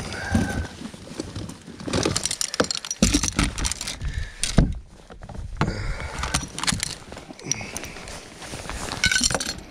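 Irregular clinking, knocking and rattling of gear being handled aboard a fishing boat.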